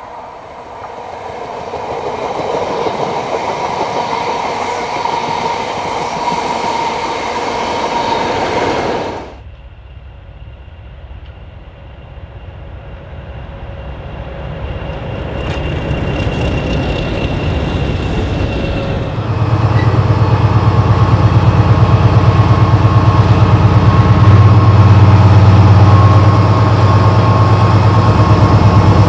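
Three short clips of British railway locomotives, each cut off sharply. First a train approaches with a rising rumble and a steady whine. Then a quieter one builds up with a thin high tone. Last and loudest, a diesel locomotive's engine throbs hard at a low pitch.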